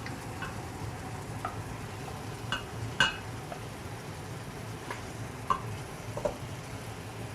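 Marinated chicken sizzling as it goes into hot, oily masala in a pan. A spoon stirs it, with short scrapes and clinks against the pan, the loudest about three seconds in.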